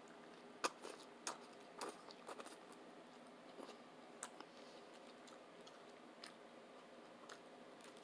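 Faint, close-up chewing of a tuna sub: soft wet mouth clicks, bunched in the first two seconds or so, then sparser.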